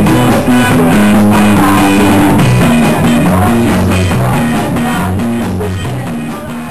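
A live rock band playing loud: electric guitars, bass and drum kit driving through a riff, getting quieter over the last couple of seconds as the section winds down.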